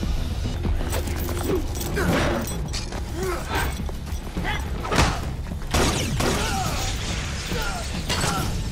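Edited action-scene soundtrack from a fight: several heavy hits and crashes, the loudest about five seconds in, over a steady low music score.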